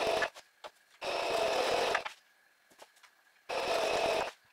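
Electric sewing machine stitching sheer curtain fabric in short runs. It stops just after the start, then runs for about a second twice, with a pause in between, as the fabric is guided under the foot.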